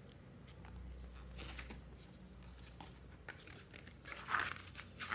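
Faint rustling and handling of photobook pages being turned, with a louder rustle about a second and a half in and another near the end.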